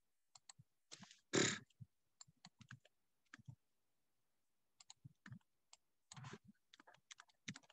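Faint, scattered light clicks and taps of hands working a computer's input devices, with one louder short thump about a second and a half in.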